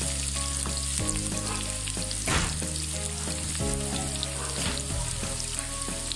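Chopped onions sizzling steadily as they fry in hot oil in a pan, with a few sharp ticks from stirring, one stronger about two seconds in.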